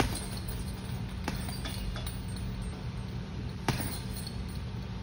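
Boxing gloves punching a hanging heavy bag: a handful of short thuds, the loudest at the very start and about three and a half seconds in, over a steady low hum.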